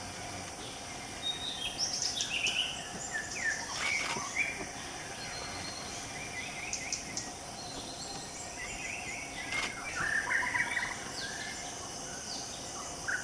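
Forest birds give short chirping calls several times over a steady high drone of insects.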